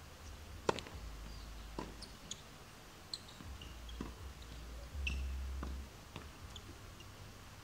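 Tennis ball struck by rackets in a rally on a hard court: the serve is hit a little under a second in, the loudest crack, followed by a string of fainter racket hits and ball bounces over the next several seconds.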